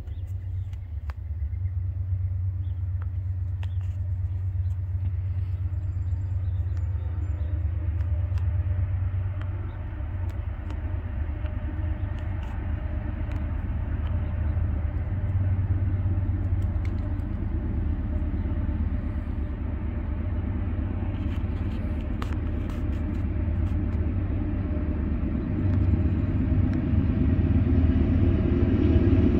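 Diesel locomotives of an approaching intermodal freight train: a steady low engine rumble that grows louder as they near, swelling further near the end.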